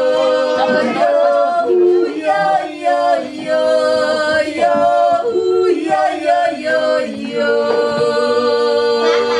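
Unaccompanied yodeling by several voices singing together in harmony, long held notes stepping from pitch to pitch, with a woman's voice among them.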